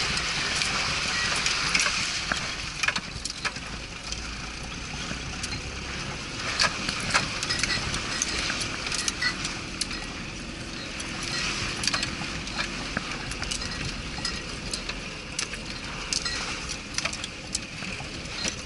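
Off-road vehicle driving over rough ground: steady engine and tyre noise with frequent knocks and rattles.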